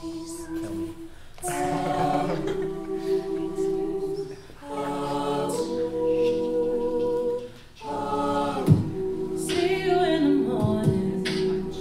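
A mixed a cappella vocal group singing sustained chords in three held phrases of about three seconds each, with short breaks between them. A sharp percussive hit comes about two-thirds of the way through, and a few more follow near the end.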